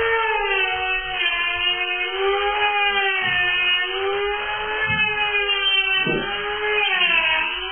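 Electric grinder running with a steady whine on the brazed joints of a steel bicycle frame, its pitch sagging and recovering as the tool is pressed onto the joint and eased off.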